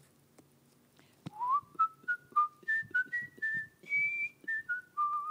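A person whistling a short tune: about a dozen quick, clear notes stepping up and down, starting about a second in with a rising first note just after a sharp click.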